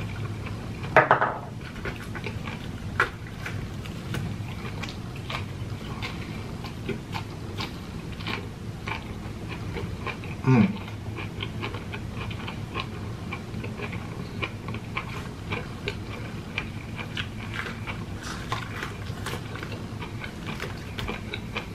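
Close-up eating sounds of ripe jackfruit: wet, sticky clicks and smacks of the latex-laden flesh being handled and chewed. A louder wet burst comes about a second in, and a short hum falling in pitch comes about halfway through.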